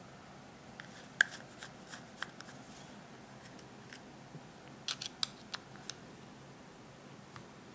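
Small metal scooter-carburetor parts and a hand tool clicking and tapping as the carburetor is taken apart: scattered light clicks, a sharper one about a second in and a quick run of them about five seconds in.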